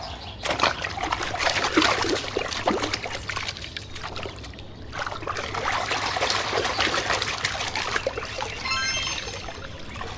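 Water pouring and trickling over a muddy toy as it is rinsed, in two spells with a short pause between them. Near the end comes a brief run of short tones that step upward.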